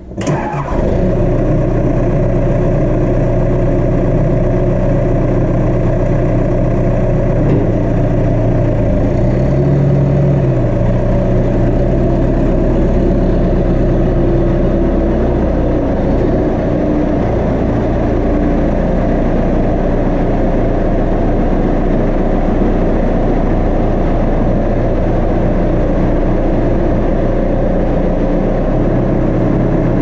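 Tractor-loader-backhoe engine starting, then running steadily.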